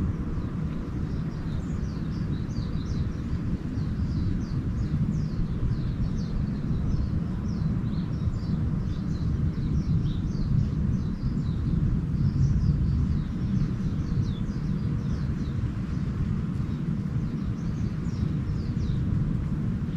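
Small birds chirping with many short, quick falling notes throughout, over a steady low rumble.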